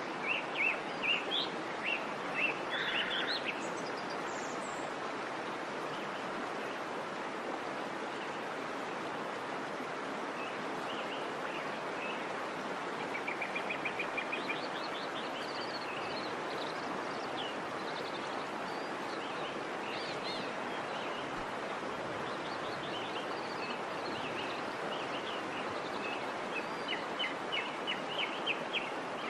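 Small birds chirping again and again over a steady background hiss, with a quick run of chirps about halfway through and bursts of calls near the start and the end.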